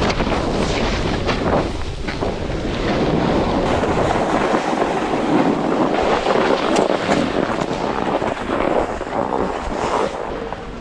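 A snowboard sliding and scraping over chopped-up snow, with wind buffeting the microphone. The low wind rumble drops away about four seconds in, while the scraping hiss carries on.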